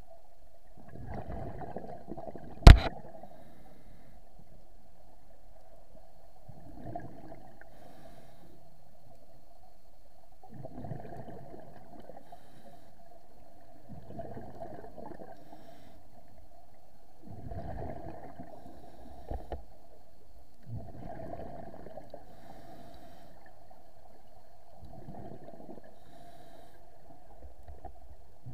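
Scuba diver's regulator breathing heard underwater through the action camera's housing: a burst of bubbling exhaled air about every three and a half seconds. One sharp click about three seconds in.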